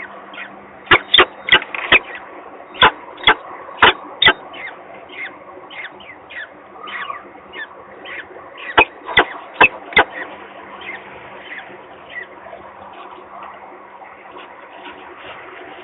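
Peregrine falcon chick peeping: a steady run of short, thin, downward-sliding cheeps, two or three a second. Twice, a cluster of loud, sharp clicks cuts across the peeping.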